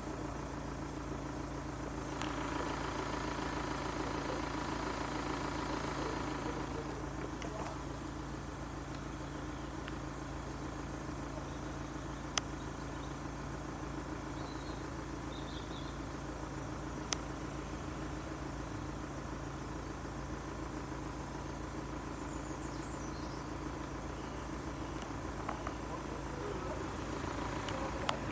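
Steady low hum of road vehicles idling while they wait, with two brief sharp clicks about halfway through. The sound starts to swell right at the end.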